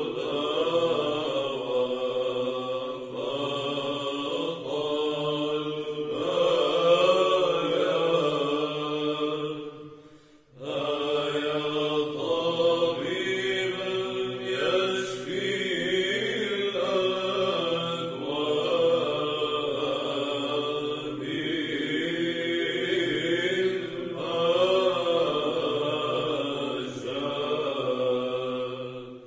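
Orthodox monks chanting a troparion in Arabic, a winding melody sung over a steady low held drone note; the chant breaks off briefly about ten seconds in, then resumes.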